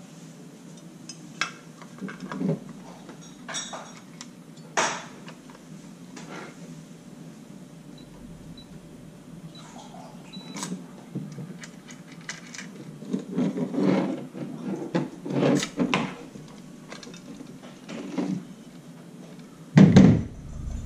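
Scattered clicks and clacks of small plastic and metal parts of an electronic keypad door lock being handled and worked apart, with a denser run of knocks past the middle and a louder thump near the end.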